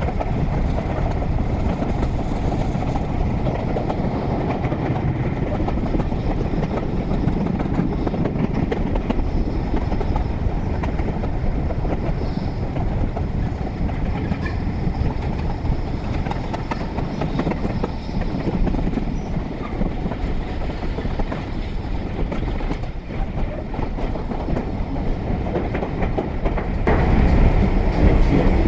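Railway train running along the track in a steady rumble that grows louder near the end.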